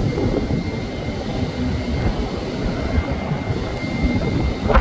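Boeing 787-9 Dreamliner's jet engines at low approach power as it flares over the runway: a steady low rumble with a faint high whine, growing louder and rougher near the end.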